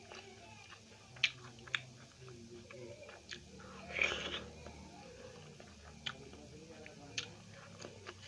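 Close-miked chewing, with sharp wet mouth clicks and smacks every second or so and a louder, longer burst of eating noise about four seconds in.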